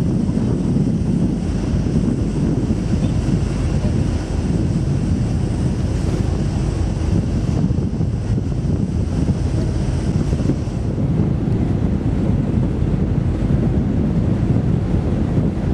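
Wind buffeting the microphone on a ship's open deck: a loud, steady low rumble of noise, with a faint high hum that fades out about eleven seconds in.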